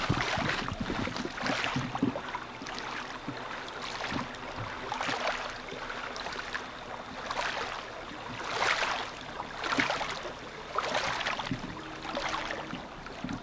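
Water washing and splashing against a rocky shoreline, surging and easing roughly once a second.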